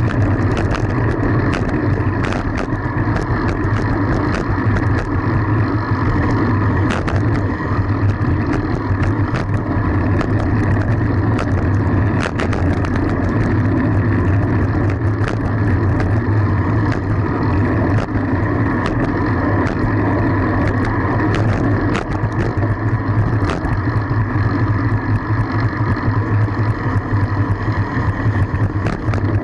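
Steady rush of wind and road noise on the microphone of a camera riding along on a fixed-gear bicycle, with frequent small clicks and rattles.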